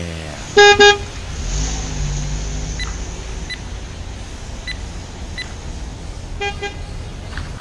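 A car horn beeping twice in quick succession, then a low rumble that carries on, and two more short horn beeps near the end.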